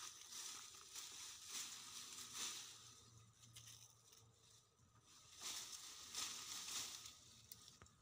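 Faint rustling of leafy bush stems and leaves as hands grab and pull at them, in two spells, the second starting a little past the middle.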